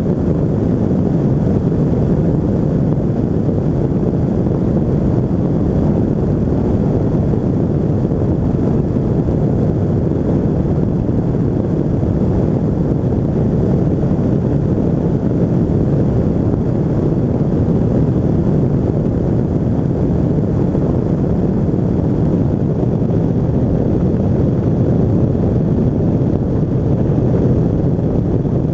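Rotax 582 two-stroke engine of a Quantum flex-wing microlight running steadily in cruising flight, mixed with wind rushing over the microphone.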